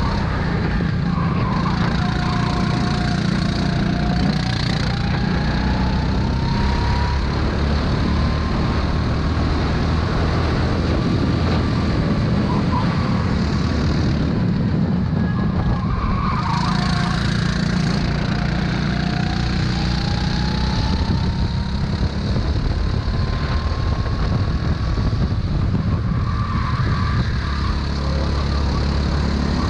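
Racing kart engine heard from on board at full race pace, its pitch climbing steadily down the straights and falling back as it slows for corners, twice in a row.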